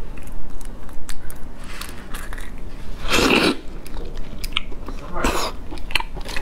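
Close-miked eating sounds from a large cooked prawn: crackling shell and wet clicks as it is pulled apart and chewed, with a longer, loud sucking sound about three seconds in as the head is put to the mouth.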